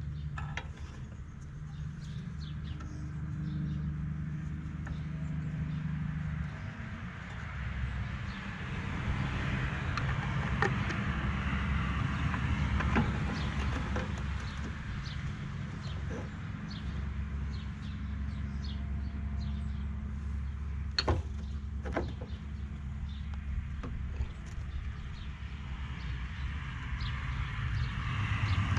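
A vehicle engine runs steadily with a low hum, under scattered small clicks and knocks.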